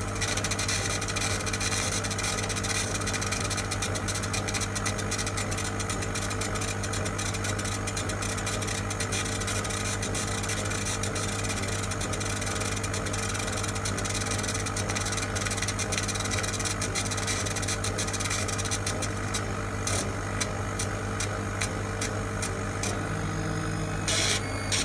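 Small CO2 laser cutter running while it raster-engraves MDF: a steady low machine hum with a constant airy hiss, overlaid by rapid clicks and ticks from the head's stepper-driven motion as it shuttles back and forth. Near the end the clicks turn into a regular pulsing, about four a second.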